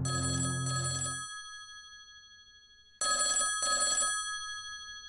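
Telephone ringing twice, about three seconds apart. Each ring is a quick double burst of bell tones that fades away. Soft ambient music ends about a second in.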